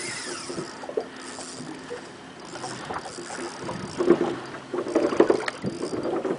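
Noise aboard a small fishing boat: wind buffeting the microphone and water slapping the hull, with irregular knocks. The sound grows louder in surges from about four seconds in.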